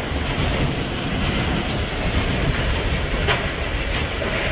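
Strong tornado winds making a steady, train-like rumbling noise with a heavy low end.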